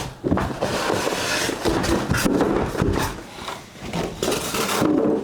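Packaging being handled: irregular rustling and scraping of bags and box contents, with a few knocks, as the bidet seat's mounting parts and papers are taken out.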